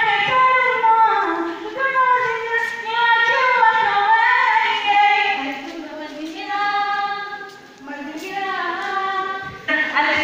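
A schoolgirl singing unaccompanied into a handheld microphone, in phrases with a short break about eight seconds in.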